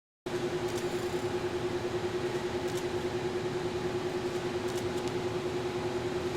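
A steady machine hum: an even rushing noise with one held tone, beginning just after a brief drop to silence at the very start.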